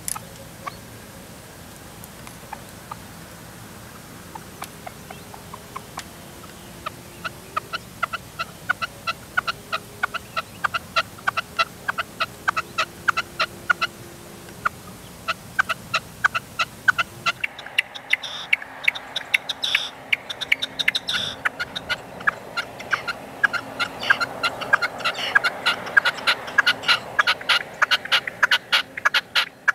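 Caged decoy red-legged partridge calling: a long run of short, sharp clicking notes, sparse at first, then coming faster and louder toward the end.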